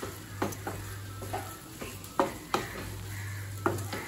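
Flat metal spatula scraping and knocking against a metal kadai as tomato rice is stirred and mixed, in a series of irregular strokes.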